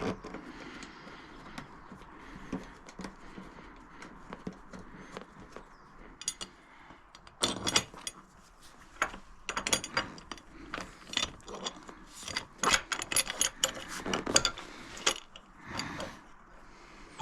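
Clicks and rattling clatter of a motorcycle's plastic side panel and its fittings being handled and pushed back into place, with a run of quick sharp knocks through the second half.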